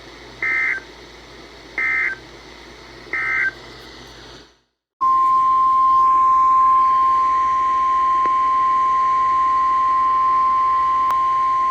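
Three short, identical two-pitched data bursts about 1.3 seconds apart: NOAA Weather Radio SAME digital code marking the end of a warning. After a brief dead silence, a loud steady single-pitch alarm tone (the 1050 Hz weather radio warning alert tone) sounds for about seven seconds, over faint radio hiss.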